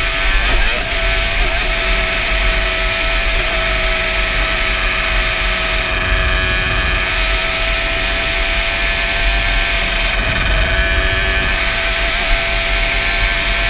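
Yamaha Banshee ATV's twin-cylinder two-stroke engine running hard at a fairly steady pitch while riding fast, with wind buffeting the helmet-mounted microphone.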